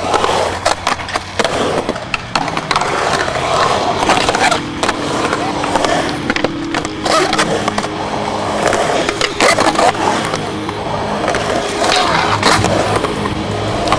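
Skateboard wheels rolling on concrete, with repeated sharp clacks and knocks of the board and trucks, over band music.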